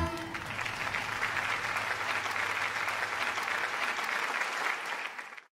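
Audience applause, a steady clapping that fades out near the end.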